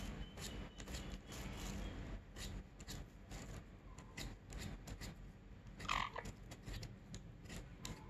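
Hand vegetable peeler scraping a potato in short strokes, a run of irregular faint clicks and scrapes. About six seconds in, the rose-ringed parakeet gives one short rising squawk.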